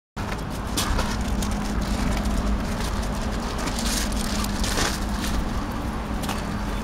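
Steady low outdoor rumble with a faint constant hum, broken by a few short scuffs and crunches of footsteps on gravel.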